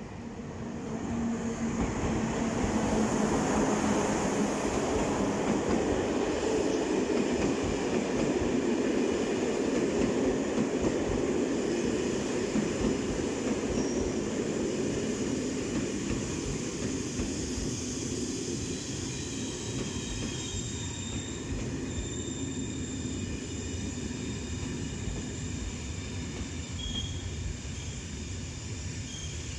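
BB 26000 electric locomotive and its Intercités coaches running in along the platform. A steady rail rumble swells within the first few seconds as the locomotive passes, then eases as the coaches roll by more slowly. Thin high brake and wheel squeals come from about halfway on as the train slows.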